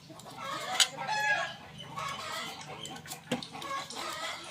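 Chickens clucking, with a sharp knock about a second in and another a little past three seconds.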